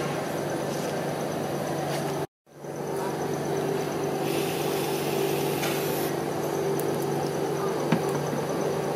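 Steady hum of a rolled-ice-cream cold-plate machine's refrigeration unit, dropping out for a split second about two seconds in. Around four seconds in, a whipped-cream aerosol can hisses for about two seconds as cream is sprayed onto the rolls, and a single light tap comes near the end.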